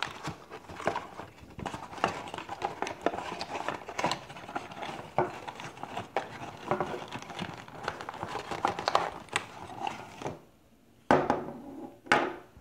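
Router packaging being handled: plastic and cardboard crinkling and rustling with scattered clicks and knocks, stopping about ten seconds in, then two short loud noises near the end.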